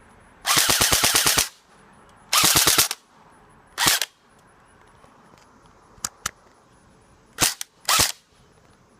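Full-metal Black Ops airsoft M4 firing in rapid bursts: a burst of about a second, a shorter one, and a brief one, then two sharp clicks, then two short bursts near the end.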